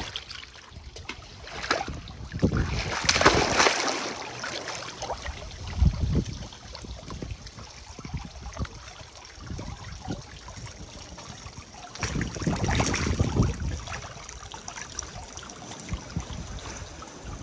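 Pool water splashing and sloshing right at the lens as a golden retriever paddles through it, with louder stretches of splashing about three seconds in and again about twelve seconds in.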